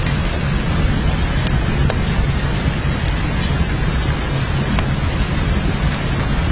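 Steady heavy rain falling, a dense even hiss over a constant low rumble, with scattered sharp drop ticks.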